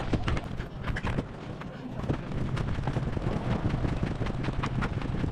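Someone running on paving: a quick, irregular string of footfalls and knocks from the handheld phone jostling, over a low rumble of wind on the microphone.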